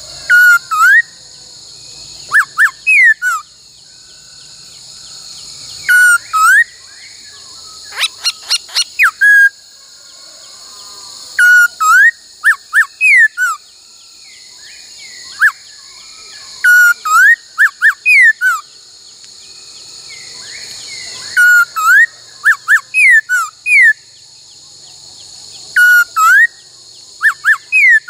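Laughingthrush whistling short phrases of three or four sharp, slurred notes, the 'bắt cô trói cột' song pattern, repeated every few seconds. A brief rattling chatter comes about eight seconds in. A steady hiss of insects runs underneath.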